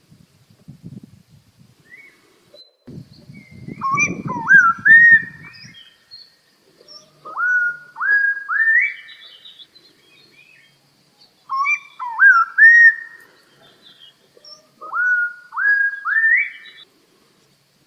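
Clear whistled song in four phrases, each a run of three or four notes that slide upward and climb in steps; the first and third phrases match, as do the second and fourth. A low rumble sits under the first phrase.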